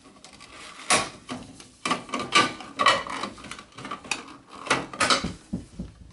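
Hard plastic clattering and knocking as the green plastic CPU fan shroud of a Dell OptiPlex GX280 is worked loose and lifted out of the case, with a series of sharp clicks and knocks amid handling rustle.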